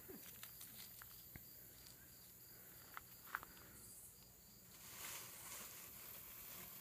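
Near silence: a few faint clicks and a soft rustle about five seconds in, from a kitten's thin metal chain leash and paws moving over gravel.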